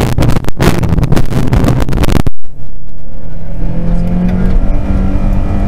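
Rally car accelerating hard off the start line, heard onboard: loud and harsh for the first two seconds, a brief break, then the engine note climbing steadily as it pulls up through the revs.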